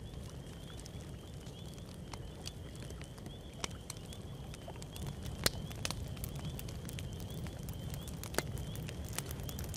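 Wood campfire crackling, with irregular sharp pops over a low steady rumble; two pops, about five and a half and eight and a half seconds in, are the loudest. Behind it a faint, high, steady trilling chorus of frogs carries on throughout.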